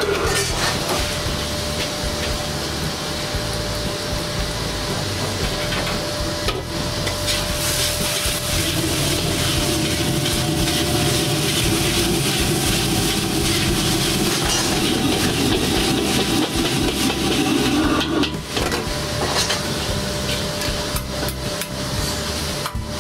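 A wok burner runs steadily under a metal spatula knocking and scraping against the wok as flat rice noodles are stir-fried, with sizzling from the pan.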